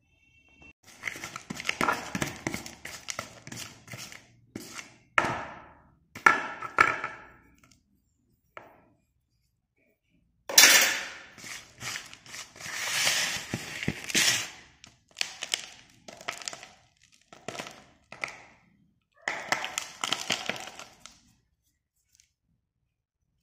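Broken slate pencil pieces and chalky shavings clattering and crunching as a hand stirs and scoops through them in a tub, in several bursts with short pauses.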